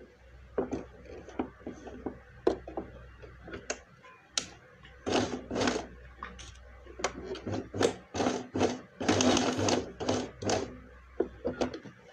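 Cloth rustling and being handled while a seam is stitched by hand, with irregular small clicks and taps and a few longer swishes of fabric, the longest about five and nine seconds in.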